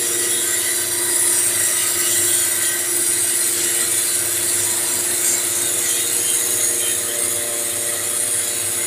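CNC wood-turning lathe running: a steady motor whine under a continuous high hiss of the cutter working the spinning wooden blank.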